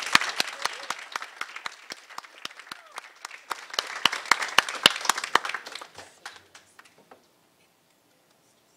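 A small audience applauding, thinning out and stopping about seven seconds in.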